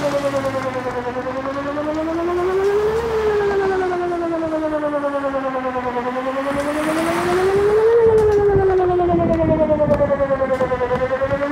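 Whelen WPS 2909 electronic outdoor warning siren sounding a slow wail: two tones that rise and fall together, cresting about every five seconds.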